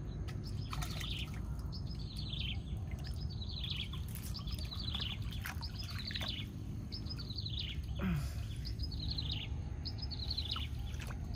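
A bird calling over and over, each call a quick run of falling chirps, repeated a little more than once a second, over a steady low rumble.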